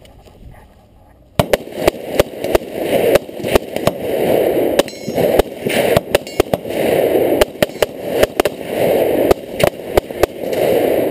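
Rapid rifle fire from two shooters: strings of sharp shots, some close together, starting about a second and a half in. A rushing noise fills the gaps between the shots.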